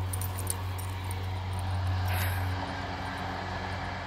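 Steady low drone of a distant engine, dropping away about two and a half seconds in.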